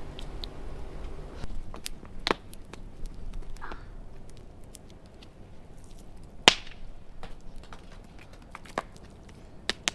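Scattered sharp knocks and clacks of hard objects striking, a few seconds apart, the loudest about six and a half seconds in.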